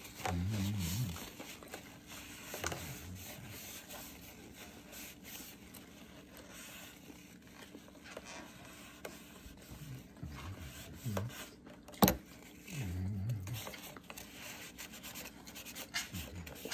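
Light scraping and rubbing of a plastic takeout sauce container being handled and opened over a plate, with scattered small ticks and one sharp click about twelve seconds in.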